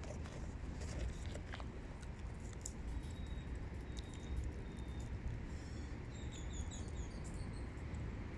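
A few short, high bird chirps repeated quickly about six to seven seconds in, over a steady low outdoor rumble.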